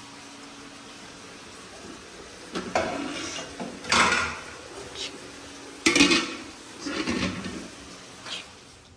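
Metal cookware clattering: an aluminium pot's lid is lifted off and steel vessels are knocked together in several clanks, the sharpest about six seconds in. A steady low hum runs underneath and stops about six seconds in.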